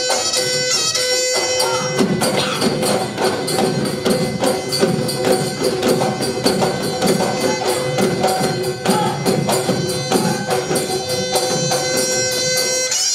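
Bihu folk music: a pepa, the buffalo-horn pipe, playing held, nasal notes, joined about two seconds in by fast, dense percussion that runs until just before the end.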